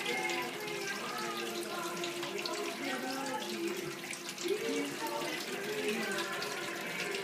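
Washing machine drain hose pouring a steady stream of water into a stainless steel sink, splashing continuously near the plughole during the wash cycle's pump-out.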